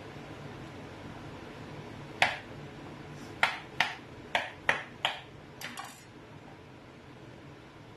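Kitchen knife chopping a vegetable on a wooden cutting board: about eight sharp knocks of the blade on the board, one about two seconds in and the rest in a quick irregular run over the next four seconds, then stopping.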